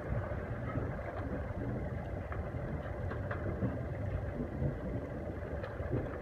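Steady low rumble of wind and water aboard a sailing yacht under way, with a few faint clicks about two to three seconds in.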